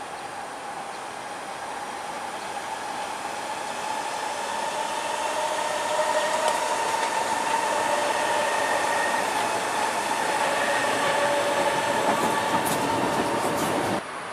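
A Kawasaki-built C151 metro train running along an elevated track, with rolling wheel noise and a steady whine, growing louder as it approaches. The sound cuts off sharply near the end.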